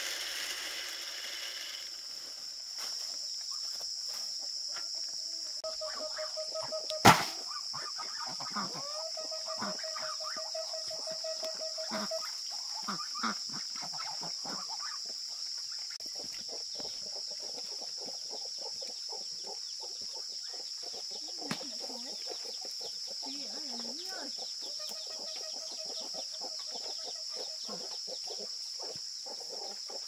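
Farm poultry calling and clucking over a steady high insect drone, with one sharp click about seven seconds in.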